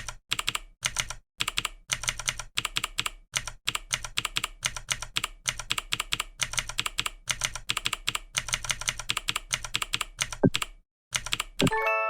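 Fast typing on a computer keyboard: rapid runs of key clicks with short gaps between them. Just before the end, a bright chime with a few ringing tones begins.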